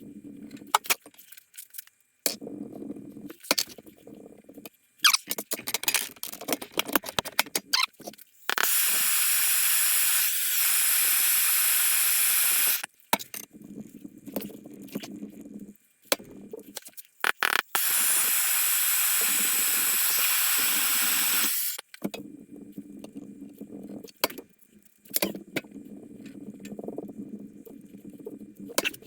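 Two loud hisses of gas or air under pressure, each about four seconds long and cut off sharply, with small clicks and knocks of tools on metal between them.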